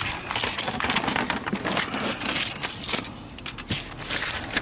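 Irregular rustling and crackling handling noise with many small clicks and rattles, with no engine running.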